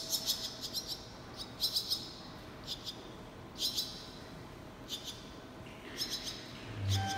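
Barn swallow nestlings chirping from the nest in short high-pitched bursts, about six over a few seconds. A dull thump near the end.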